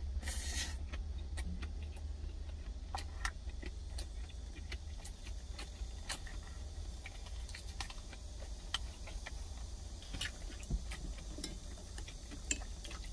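Close-up eating sounds: chewing, with light irregular clicks of wooden chopsticks against a stainless steel cup. There is a short noisy burst near the start and a steady low hum underneath.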